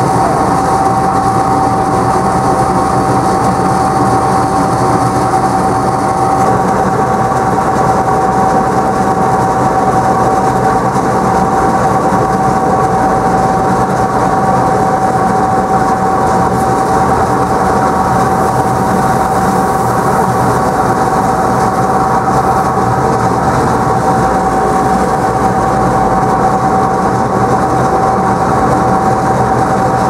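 Tractor-driven Wakely 1240 Mobile crimper running steadily while crimping maize and discharging it up its elevator: a constant mechanical rumble and rattle with a steady whine over it.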